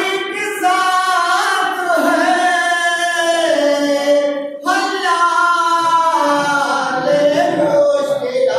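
A man's voice chanting a mourning elegy in a melodic, sung style through a microphone, with long held notes; he pauses for breath about four and a half seconds in and carries on.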